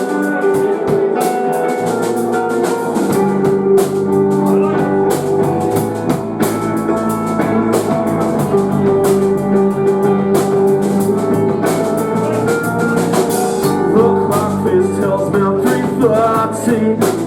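Rock band playing an instrumental intro with drum kit and electric guitar, the bass guitar coming in about two to three seconds in.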